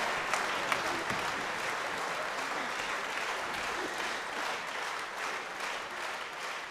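Large concert-hall audience applauding, a dense even clapping that slowly dies down.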